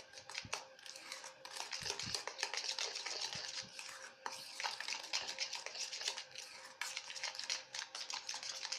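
A spoon stirring and scraping in a stainless steel bowl: fast, continuous scrapes and clinks against the metal as cocoa powder and powdered sugar are mixed into warm milk cream to a thick chocolate paste.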